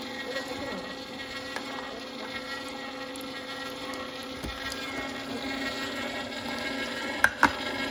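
Sharp Healsio Juicepresso slow juicer running steadily, its motor humming as the auger presses mandarin orange segments. Two sharp knocks near the end.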